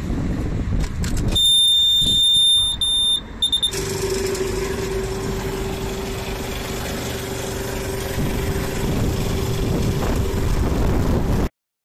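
Wind buffeting the microphone, then a forecourt tyre air machine's high electronic beep, held for about two seconds with a couple of short breaks. About four seconds in, the machine's air compressor starts and runs with a steady hum under the wind until the sound cuts off.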